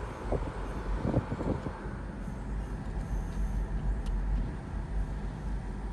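Cabin noise of a 2011 Honda CR-V driving, a steady low rumble from the road and drivetrain, with the strange vibration noise that the owners want their mechanic to hear.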